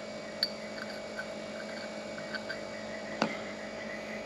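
Faint clicks and light taps of the small parts of a water pressure regulator being handled, with one sharper click about three seconds in, over a steady electrical hum.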